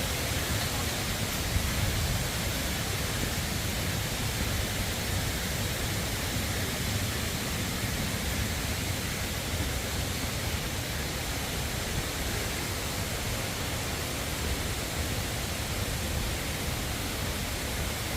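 A steady, even rushing noise with no clear pitch, fullest in the low end.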